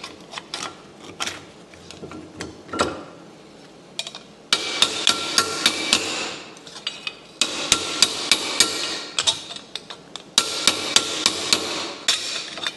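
Hammer blows on a sheet-steel patch panel: three runs of quick, ringing strikes about four a second, with lighter scattered taps and knocks between them.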